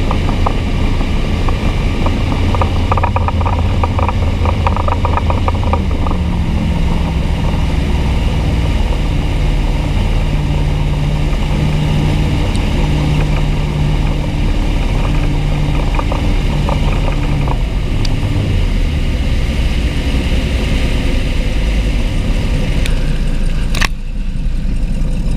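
Inboard engine running a Volvo Penta SX duoprop sterndrive in the water, with its exhaust water spraying and splashing hard around the drive. The engine note steps up about six seconds in and settles back after about seventeen seconds. The heavy spray comes from an exhaust that is not clogged, and the owner questions whether it is normal.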